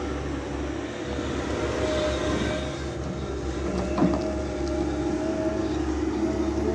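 Caterpillar 320-series hydraulic excavator's diesel engine running steadily, with a short knock about four seconds in.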